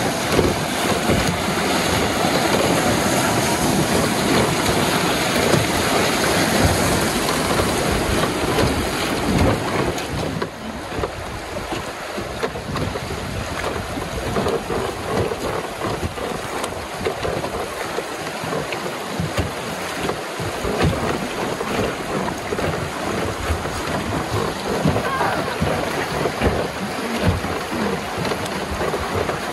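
Wind gusting on the microphone over the rush of river water around a wooden raft, a little quieter from about ten seconds in.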